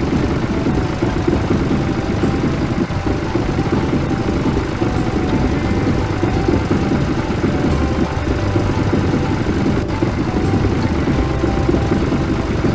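Animated tractor engine sound effect: a steady low engine rumble as the tractors drive over a wooden bridge.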